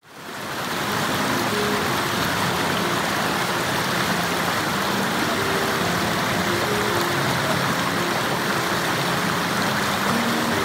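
Mountain stream rushing over boulders in small rapids: a steady, even rush of water that fades in over the first second.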